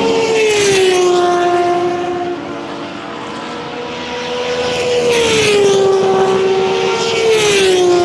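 Turismo Carretera race car engines running at high revs, loud. The engine note falls in pitch three times: about half a second in, about five seconds in and near the end.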